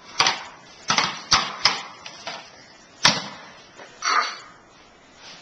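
A handful of sharp knocks and clatters at uneven spacing, about five in the first three seconds, the loudest just after three seconds, then a short hissing burst about four seconds in.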